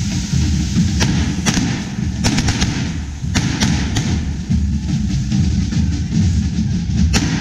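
Hand-held firework fountains on poles hissing as they spray sparks, with a string of sharp cracks between about one and four seconds in and a couple more near the end.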